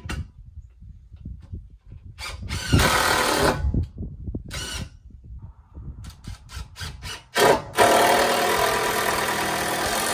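Cordless drill-driver running in short bursts, then one long steady run of a few seconds near the end, driving a structural timber screw into a wooden rafter.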